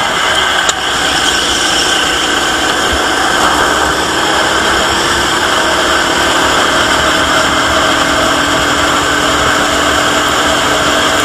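Go-kart engine running steadily under racing load, heard from an onboard camera on the kart. The sound is loud and continuous, with a lot of noise mixed in.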